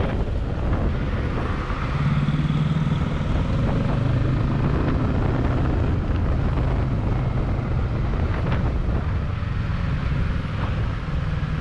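Kawasaki Ninja 650's parallel-twin engine running under way at city speed, a steady low drone mixed with rushing noise.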